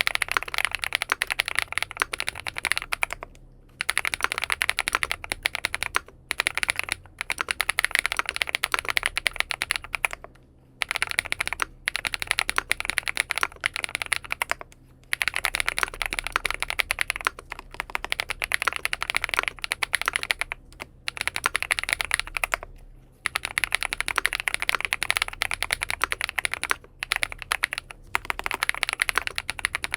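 Typing test on a XINMENG M71 full-aluminium 60%-layout mechanical keyboard fitted with BSUN Bunny switches: fast, steady runs of keystrokes several seconds long, broken by brief pauses.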